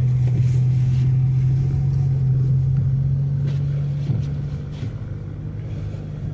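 A car's steady low engine drone with road rumble, easing off in loudness about four seconds in.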